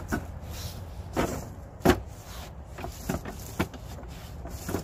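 Irregular knocks and clunks of camping gear being handled and set down while setting up a truck camp, about six in all, the loudest just before two seconds in, over a steady low rumble.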